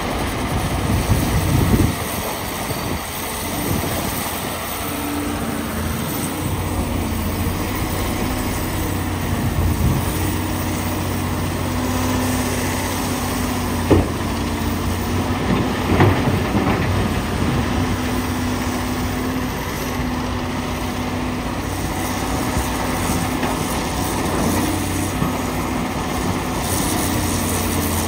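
Komatsu PC450LC excavator's diesel engine running under hydraulic load, its pitch shifting as it digs and swings. About halfway through, rock dropped from the bucket crashes into the steel bed of a dump truck, with a second knock shortly after.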